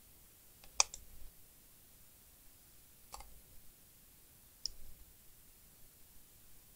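A few sharp clicks as a laptop's internal parts are handled: the sharpest about a second in, two softer ones around three and four and a half seconds in.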